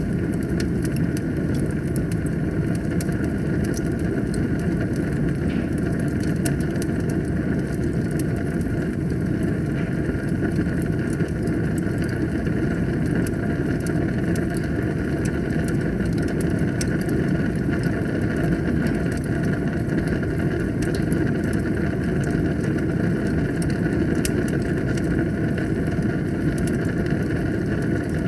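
Wood fire burning in a fireplace: a steady low roar of flames with frequent small crackles and pops of burning wood.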